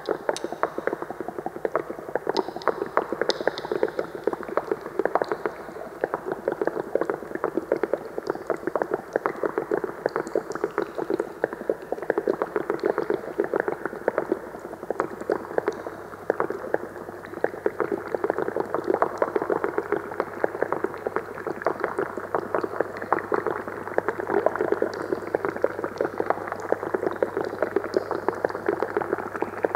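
Amplified bubbling and crackling of liquid from water-filled glass cylinders and tubing: a dense, continuous stream of rapid small pops held in a narrow middle band. A steady low hum joins about halfway through.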